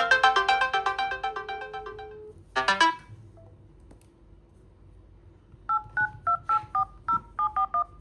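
A smartphone's melodic ringtone fades out over about two seconds, followed by a brief burst of notes. After a pause, a number is keyed in on the phone's dial pad: about ten short two-tone touch-tone (DTMF) beeps in quick succession.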